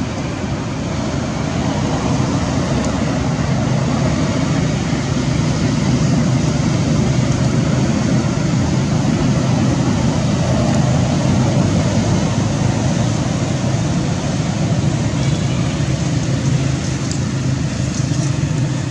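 Steady low rumbling outdoor background noise, like distant road traffic, with no clear animal calls standing out.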